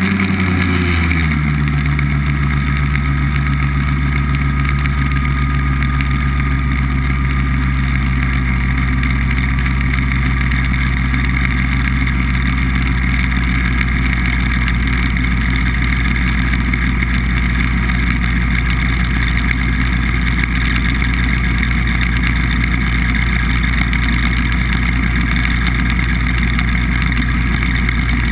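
BBV2+2 hovercraft's engine and propeller fan running steadily under way. The pitch drops a little about a second in, then holds.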